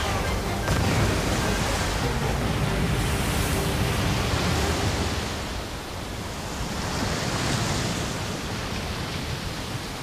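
Steady rush of cascading water and spray, a waterfall sound effect, with music underneath; it drops a little in level about halfway through.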